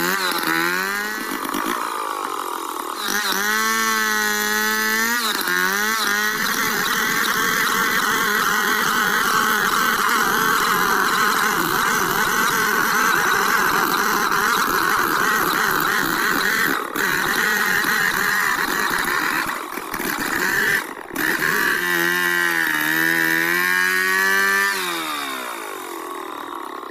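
Stihl two-stroke chainsaw freehand ripping a squared log lengthwise into lumber. It revs up and down a few times at first, then runs steadily at full throttle under load through the cut, with a couple of brief dips. Near the end it revs and eases off again, dropping to a lower idle.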